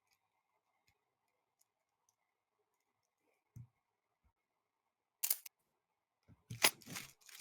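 Quiet room tone with a faint steady hum, broken by a soft thud and then a few short, sharp clicks near the end.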